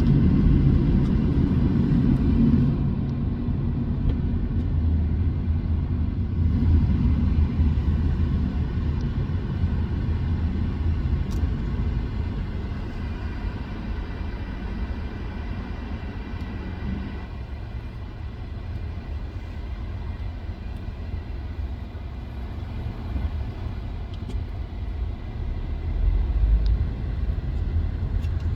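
Road and engine noise heard from inside a moving car, a steady low rumble.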